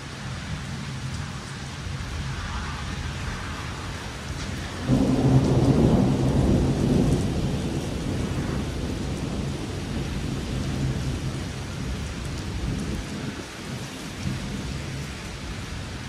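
Thunderstorm: rain falling steadily, with a low rumble of thunder that sets in suddenly about five seconds in, is loudest for a couple of seconds, then rolls away slowly.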